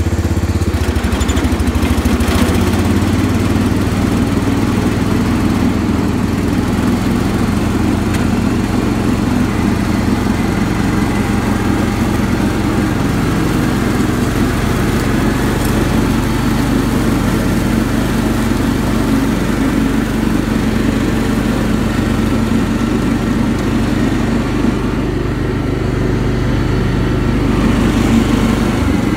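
Cub Cadet 1650 garden tractor's single-cylinder Kohler engine running steadily under load with the mower blades engaged, cutting tall grass.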